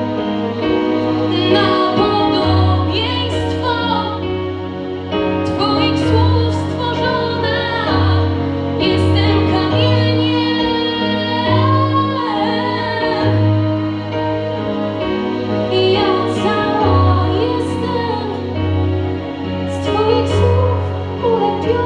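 Young female singer singing a song in Polish into a handheld microphone, amplified through the hall's PA, over instrumental accompaniment with long held bass notes.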